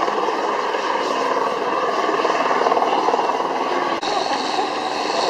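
Light single-engine helicopter flying low overhead: a steady turbine whine over the rotor noise.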